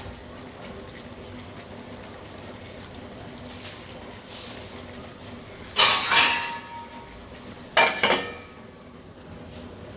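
Lid being put on a cooking pot of boiling kadha: two quick clinks about six seconds in and another clink about two seconds later, each with a short ring.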